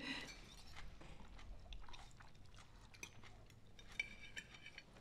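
Quiet dinner table with faint, scattered clinks of cutlery on plates and soft chewing.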